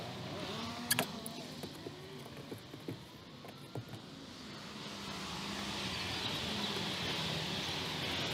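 Road traffic passing, a steady hum that swells in the second half. There is one sharp click about a second in and a few lighter knocks over the next few seconds from boards and tools being handled on the roof.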